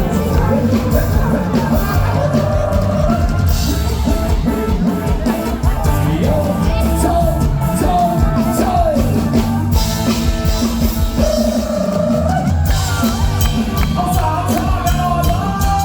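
Live band playing an upbeat Thai luk thung song, with a woman singing a melody that glides between held notes over a steady drum-kit beat.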